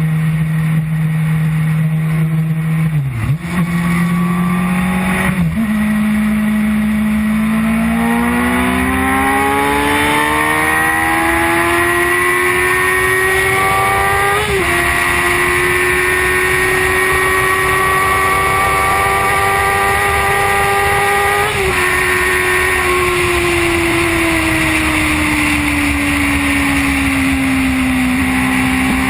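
Sport motorcycle engine heard from on board at speed, shifting up twice in quick succession, then revs climbing steadily for several seconds, holding high and easing off near the end, under steady wind rush.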